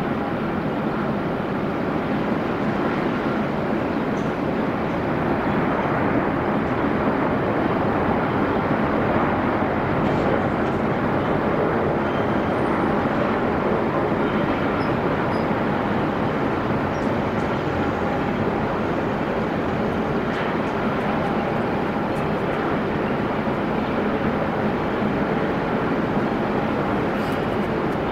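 Steady jet engine noise from a Qantas Airbus A380 and its Rolls-Royce Trent 900 engines as it decelerates along the runway after touchdown, a little louder about five seconds in.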